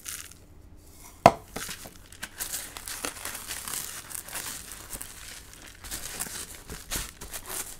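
Hands pressing dry panko breadcrumbs onto a raw minced-beef patty in a tray: a dense, dry crackling and rustling of crumbs. One sharp knock about a second in.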